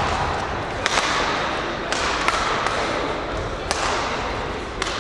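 Badminton rackets striking the shuttlecock in a rally: about six sharp hits, mostly a second or so apart.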